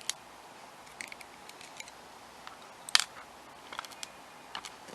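Small metal clicks and taps from a pin-tumbler lock being taken apart by hand, its pins and springs being worked out. The clicks are irregular, with one sharper click about three seconds in.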